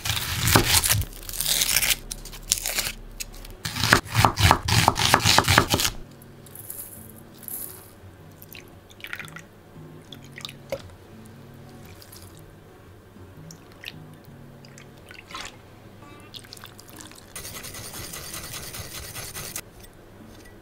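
Knife chopping an onion on a wooden cutting board, a quick run of sharp cuts for the first six seconds. Then quieter sounds of sugar and seasoning liquids going into a stainless steel bowl of sliced pork, and a rapid scraping near the end, over soft background music.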